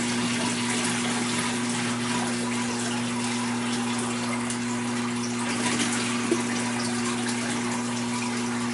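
Steady rush of water splashing into a 125-gallon aquarium over a low, steady motor hum, with one small click about six seconds in.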